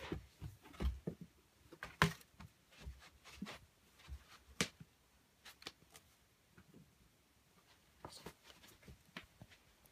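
Scattered soft knocks, taps and rustles of a Nike Hypervenom Phantom II football boot being handled and pulled onto a socked foot, with a couple of sharper knocks about two and four and a half seconds in.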